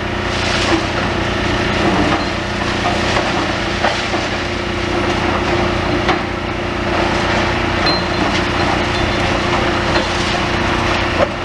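Demolition excavator tearing down a building: a continuous din of breaking timber and masonry with many short cracks and knocks, over the steady running of the machine's engine.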